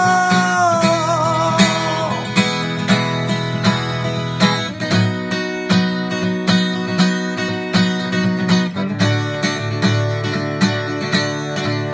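Acoustic guitar strummed in a steady rhythm. A man's sung note, held with vibrato, fades out about two seconds in, leaving the guitar playing alone.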